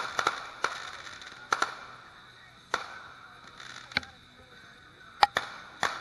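Fireworks bursting: about ten sharp bangs at uneven intervals, each trailing off briefly, with the loudest a little after five seconds in.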